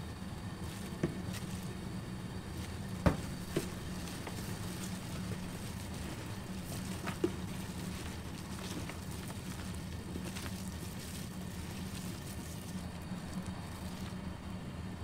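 Gloved hands mixing thick red pepper kimchi seasoning into sliced vegetables in a plastic tub: soft wet squishing and crackling, with a few sharp knocks, the loudest about three seconds in, over a steady low hum.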